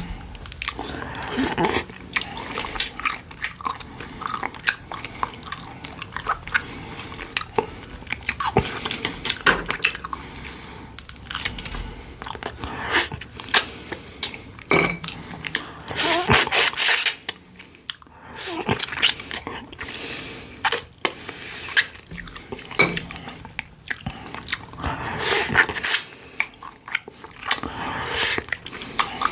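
A person chewing and biting into food close to the microphone, eating pork-bone soup with kimchi and radish side dishes. The sound is a constant run of irregular wet clicks and crunchy bites.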